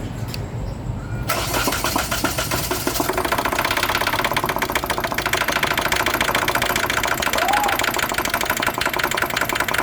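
Hyundai Accent CRDi common-rail diesel engine being cranked over by its starter motor, a fast, even pulsing that begins about a second in and keeps going, during a cranking no-start troubleshooting attempt.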